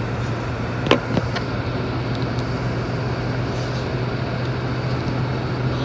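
Diesel engine of a Scania K230UB Euro 4 city bus idling in the cabin with a steady low drone. A sharp click is heard about a second in, with a lighter one just after.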